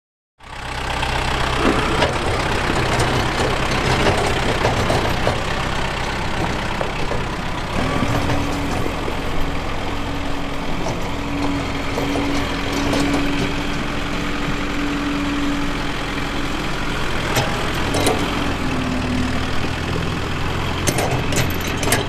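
Farm tractor engine running steadily, starting after a moment of silence. A steady whine joins the engine about a third of the way in and the engine note shifts; near the end the whine stops and the note shifts again, with a few clicks.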